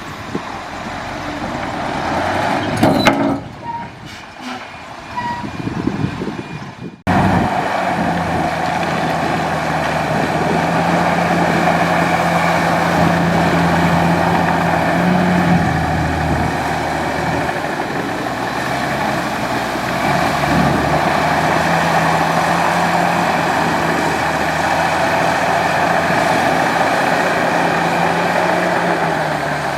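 Heavy diesel engine of a large bulldozer working, uneven with a few clanks over the first seconds. About seven seconds in the sound changes abruptly to a steady engine drone whose pitch sags briefly a few times under load.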